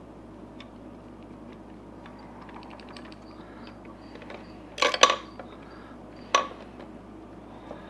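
Light metallic clicking of a hand wrench backing a bolt out of a cast MerCruiser gimbal housing, then two sharp metal clanks about five and six and a half seconds in as the bolt and tool knock against the housing.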